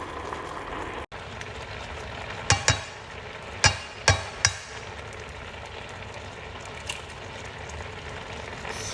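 Vegetables sizzling steadily in a hot pan, with five sharp knocks from about two and a half to four and a half seconds in as eggs are cracked into it.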